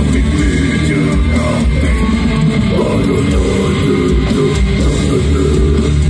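Heavy metal band playing live through a concert PA: loud, distorted electric guitars, bass and drum kit, without a break.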